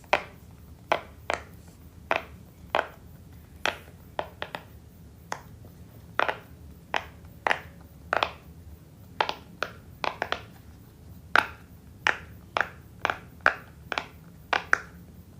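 A fidget toy being worked by hand, making sharp clicks or snaps over and over at an uneven pace of about two a second.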